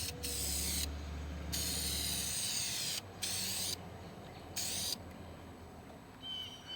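Aerosol spray can of appliance-white epoxy paint hissing in several bursts of about a second each, with short gaps between them, stopping about five seconds in.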